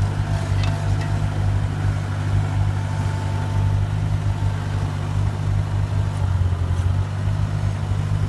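Skid-steer loader's engine running steadily with a constant low hum as the machine drives with a loaded bucket.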